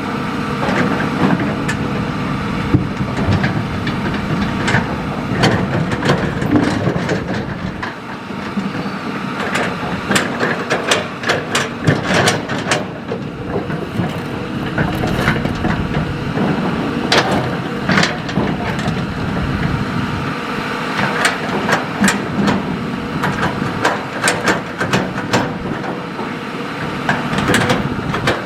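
Hitachi excavator's diesel engine running steadily at working revs, with repeated sharp knocks and clatter of rock and gravel against the steel bucket as it digs and dumps fill.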